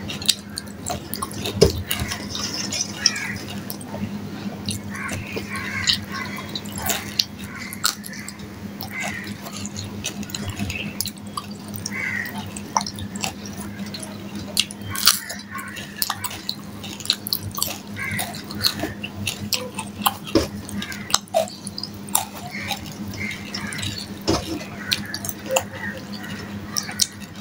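A person chewing and smacking while eating fried hilsa fish by hand, picking the flesh off the bones: a string of short mouth clicks and smacks over a steady low hum.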